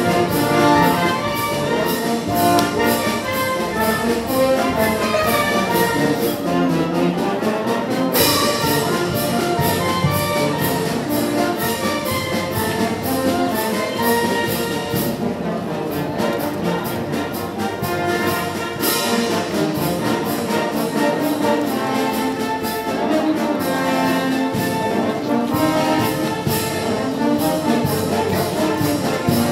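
Brass band playing a tune over a steady drum beat.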